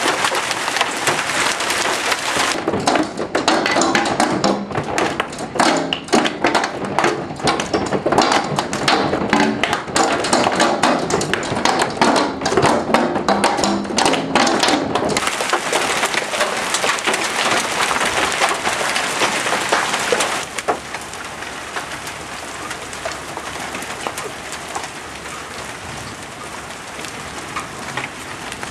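Marble-size hail pelting down, a dense rattle of many small impacts over a steady hiss. About twenty seconds in it drops to a quieter, even hiss.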